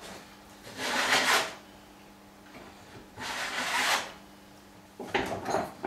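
Stanley No. 50 combination plane cutting a bead along the edge of a board: two strokes of shaving wood, each under a second, about two seconds apart.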